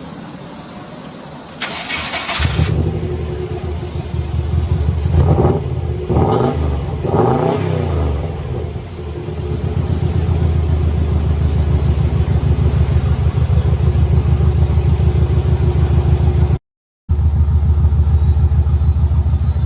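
Subaru Legacy B4 RSK's twin-turbo flat-four, through a BLITZ aftermarket muffler, is started: the starter cranks about two seconds in and the engine catches. It is revved three times and then settles into a steady idle. The sound cuts out for a moment near the end.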